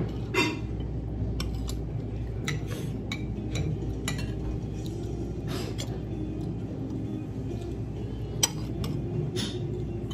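Cutlery clinking and tapping against dishes at a dining table: scattered sharp clinks, one ringing just after the start and a sharp tap near the end, over the steady low hum of a restaurant dining room.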